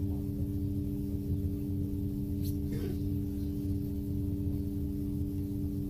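Steady hum of a Xiamen King Long electric low-floor midibus standing still with its systems running, heard from inside the cabin: several constant tones over a low rumble. A faint brief noise comes a little before halfway.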